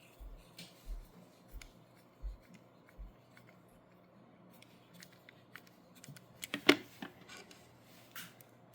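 Light, scattered clicks of a hand screwdriver with a Torx #3 bit turning small screws into a plastic remote housing, a tick about every two-thirds of a second at first, then a cluster of sharper clicks with one loud click about two-thirds of the way through.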